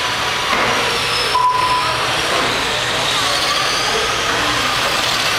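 Electric radio-controlled racing cars lapping a carpet track: a steady whir of motors and tyres with high whines rising and falling as the cars speed up and slow down. A short electronic beep sounds about a second and a half in.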